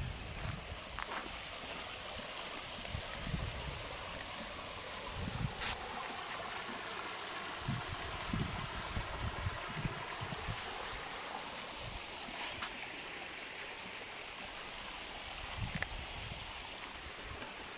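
Steady rushing of running water, with soft low thuds here and there.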